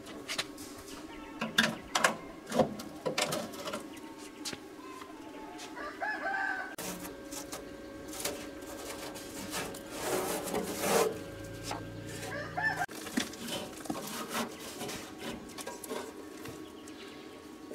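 Chickens clucking and a rooster crowing twice, among scattered light clicks and knocks over a faint steady hum.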